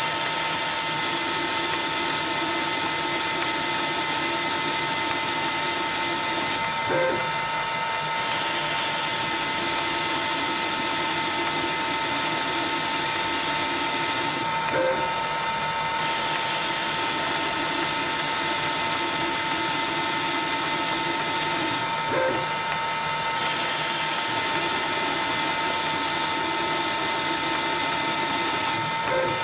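CNC Myford ML7 lathe running steadily while turning a small ball handle, with a constant whine from the machine. A short click and a change in the sound come about every seven and a half seconds, as each automated pass repeats.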